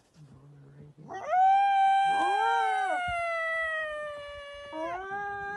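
Two lynx yowling. A long, drawn-out wail starts about a second in and slowly falls in pitch, a shorter rising-and-falling call overlaps it, and another wail begins near the end.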